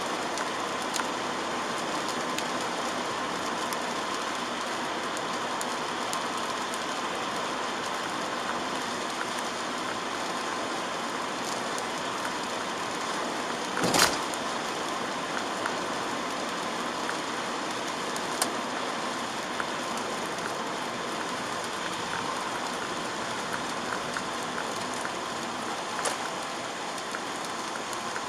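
Steady hiss of rain and wet tyres on the road, heard from inside a moving car, with one sharp knock about halfway through and a few faint ticks.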